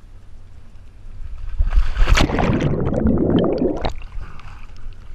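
Water splashing and bubbling around a scuba diver in the water, loud for about two seconds and cutting off sharply.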